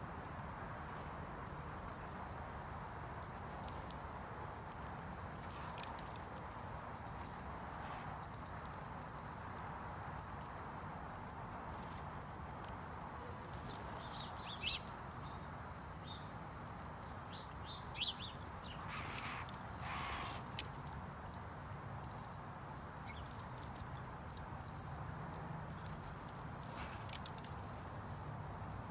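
Insects trilling steadily at a high pitch, with loud, short, sharp ticking calls about once a second, often in pairs, standing out above the trill. A brief rush of noise comes about twenty seconds in.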